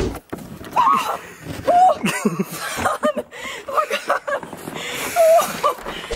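Excited shrieks, gasps and laughter from a few people, short cries with swooping pitch, as someone flips off a ledge into deep snow.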